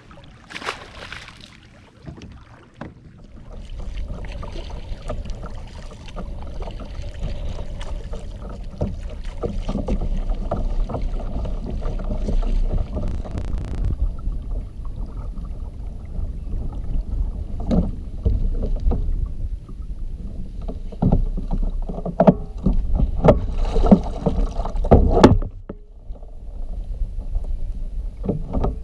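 Water sloshing and splashing against the hull of a moving fishing kayak over a low rumble, with a run of sharper knocks on the hull near the end.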